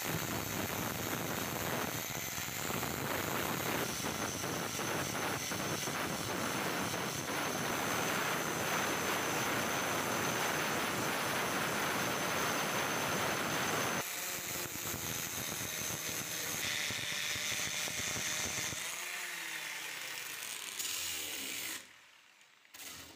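Angle grinder grinding weld beads off a steel axe head, a loud steady grinding with a high whine. About 14 seconds in the sound lightens, and near the end the grinder winds down and stops.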